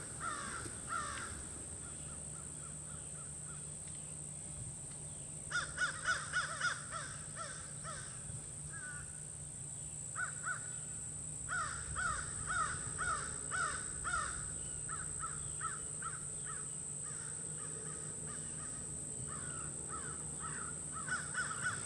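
A bird calling in several runs of short, repeated notes, about three a second, with a steady low hum underneath.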